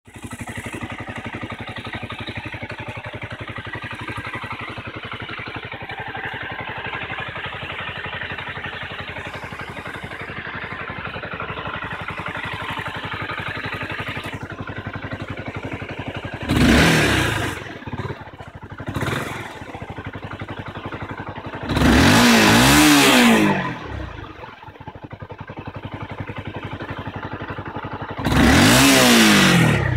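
2014 Honda CBR250R's single-cylinder four-stroke engine on its stock exhaust, idling steadily for about the first half. After that it is revved three times, with a smaller blip after the first rev. Each rev rises sharply and falls back to idle, and the middle one is held longest.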